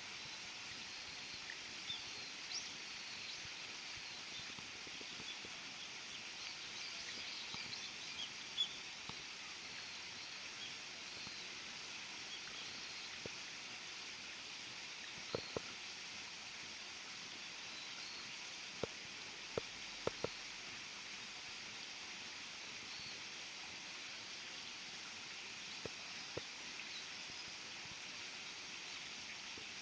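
Outdoor ambience with a steady hiss and faint, scattered bird chirps, broken by a few sharp clicks about halfway through and again a little later.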